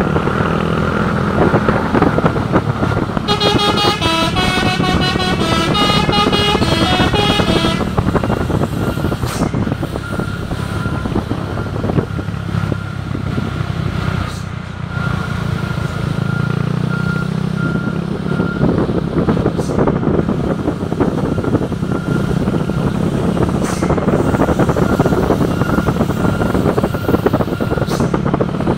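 Telolet horn, the Indonesian musical multi-tone vehicle horn, playing a short stepped tune about three seconds in for roughly five seconds, over a large vehicle's engine running steadily. Short repeated high tones follow later.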